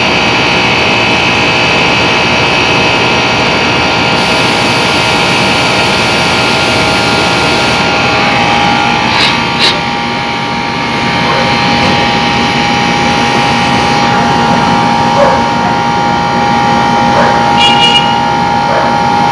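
Air conditioner compressor and fan motor running under load while being charged with R22 refrigerant: a steady machine hum made of several tones, which shifts in pitch about eight seconds in, with two clicks shortly after.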